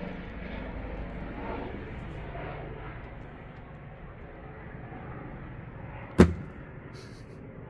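Steady low background noise, with one sharp bang about six seconds in.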